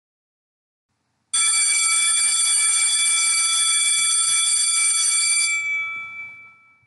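School handbell ringing continuously: a bright metallic ringing that starts about a second in, holds steady for about four seconds, then fades away near the end.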